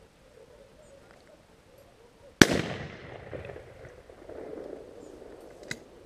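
A single shot from an over-under shotgun about two and a half seconds in, its report echoing and fading away over the next two seconds. A short sharp click follows near the end.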